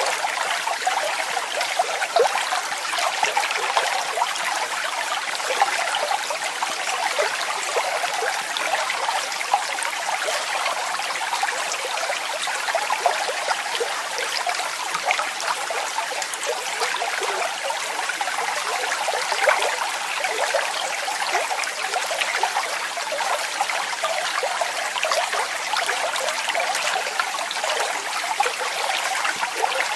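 Falling water splashing and trickling steadily, a bright, even rush of small splashes with little low rumble.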